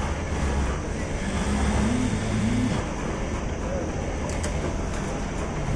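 Steady din of a garment factory's sewing floor: industrial sewing machines and their motors running, with a few light clicks about four to five seconds in.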